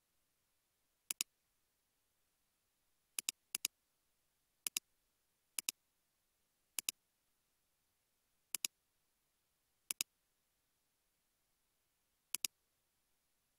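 Computer mouse button clicks, about nine sharp click pairs at irregular intervals, each pair two quick clicks close together, over near silence.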